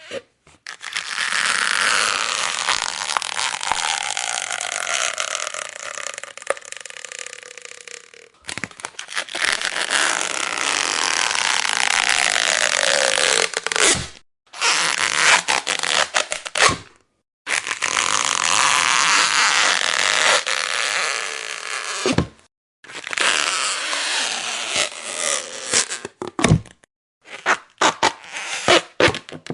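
Rubber being stretched, creaking and squeaking in about six pulls separated by short silences, with the squeak's pitch sliding downward during each pull. The first pulls are long, lasting several seconds, and the last few near the end are short.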